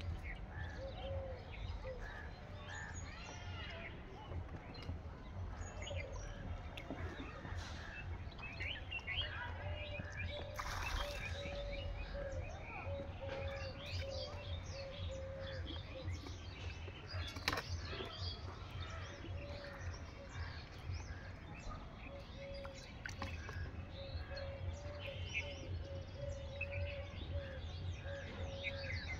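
Several birds chirping and calling, with many short chirps, over a steady low rumble.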